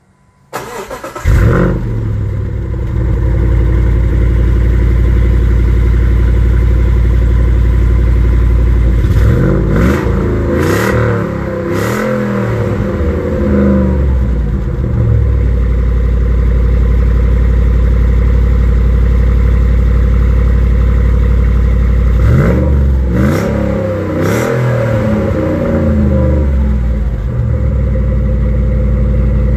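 Hemi V8 in a Jeep starting up: it cranks briefly and catches with a loud flare about a second in, then settles to a steady idle. It is revved in a series of quick throttle blips around ten seconds in and again around twenty-three seconds in, dropping back to idle after each group.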